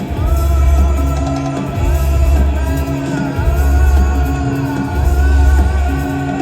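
Rock band playing live, with deep bass notes held about a second and a half each and short gaps between them. Over the bass a high voice sings long, wavering notes.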